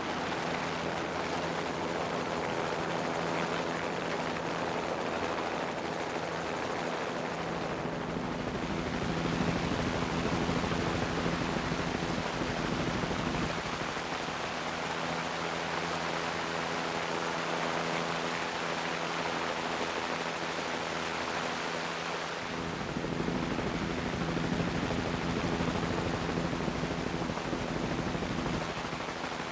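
Steady drone of an aircraft in flight, heard from on board: a low engine hum with rushing air noise, shifting in balance a few times.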